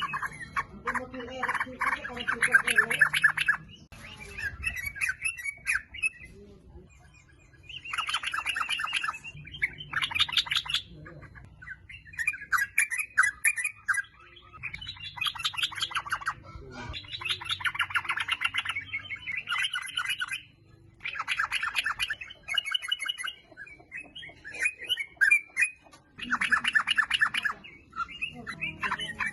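Yellow-vented bulbul (trucukan) singing and chattering. Fast, bubbly phrases come in repeated bouts of a second or two, with short pauses between them.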